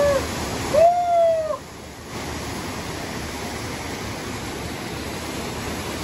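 Steady rushing of a waterfall pouring into a rocky pool. About a second in, a short high call rises and falls over it, and the water noise dips briefly just after.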